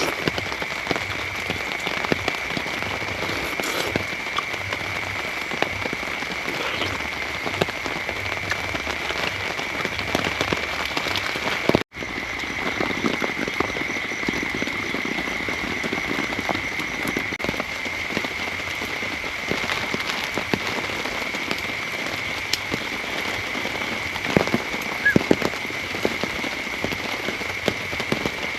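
Heavy rain falling steadily, with many sharp drop taps over the even hiss and a steady high-pitched tone running beneath it. The sound cuts out for an instant about twelve seconds in.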